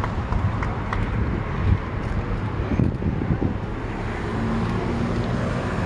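Steady low rumble of outdoor vehicle noise, with a few faint clicks.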